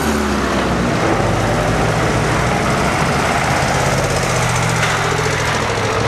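Vintage farm tractor engines running steadily as the tractors drive slowly past one after another.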